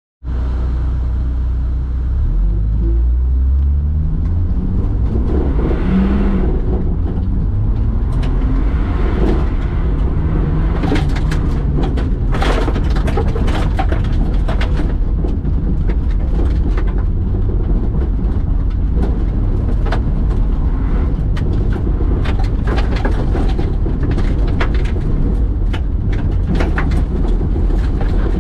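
Car engine pulling away hard and revving up, heard from inside the cabin, then running at speed over loose dirt with stones and grit ticking and rattling against the car's underside.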